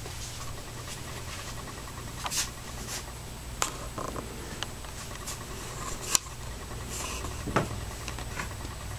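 Handling noise from a handheld camcorder being panned: scattered soft clicks and short rustles over a steady low hum.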